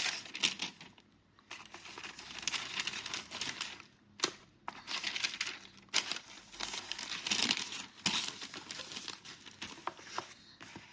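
Paper and plastic packaging of a gift box being opened and handled: crinkling and rustling in several stretches, with a couple of sharp clicks.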